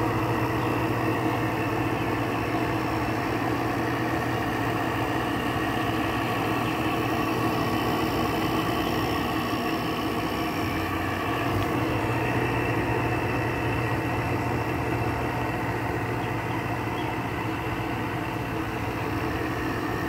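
GE window air conditioner running: its LG rotary compressor and fan give a steady hum with a low tone. It is just after startup, before head pressure has built, and the unit still has a full refrigerant charge and blows cold.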